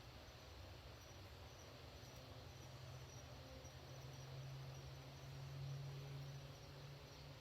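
Near silence: faint chirping of night insects with a low steady hum.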